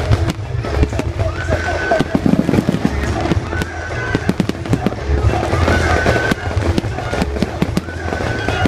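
Fireworks display: many rapid pops and bangs from the shells going off, with music playing under them.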